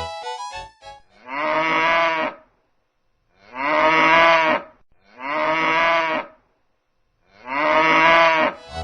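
A cow mooing four times, each long moo lasting a little over a second with short pauses between. A few notes of music end about a second in, before the first moo.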